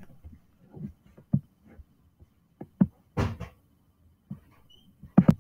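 Handling noise from a hand on the laptop that is recording: a few irregular knocks and clicks, with a short rustle about three seconds in.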